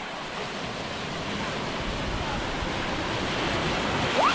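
Sea surf: a small wave rolling in and breaking into foam around people standing waist-deep, a steady rush of water that grows louder toward the end.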